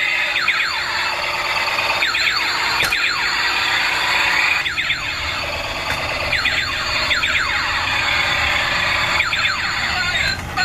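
Battery-powered bump-and-go army Hummer transformer toy playing its electronic sound effects through its small speaker as it rolls: a loud, shrill, alarm-like warble with falling sweeps repeating every second or two.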